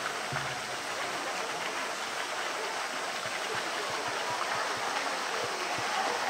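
Steady rush of running water in a zoo polar bear's pool.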